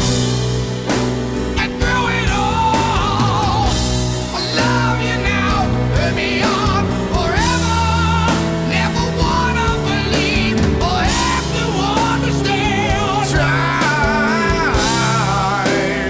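Rock song with a wavering, vibrato-laden lead vocal over sustained guitar and keyboard chords and a steady drum beat.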